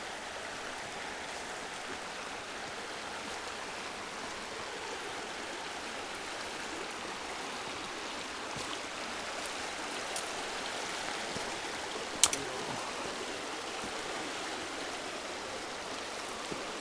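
Steady rushing of a river's water over rocks through shallow rapids. One sharp click about twelve seconds in.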